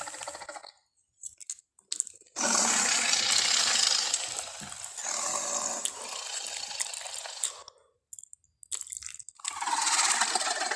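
Tyrannosaurus rex sound effect: a long, loud, noisy burst of about five seconds, fading over its last half, then a second burst starting near the end.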